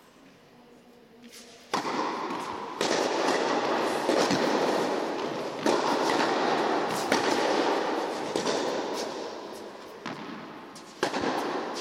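Tennis ball hits in a rally on an indoor hard court: a serve about two seconds in, then racket strikes and bounces roughly every second and a half, over a loud rushing noise that starts suddenly with the serve.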